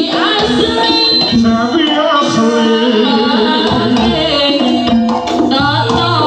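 Javanese jaranan music: a gamelan ensemble with kendang drumming, and a voice singing over it.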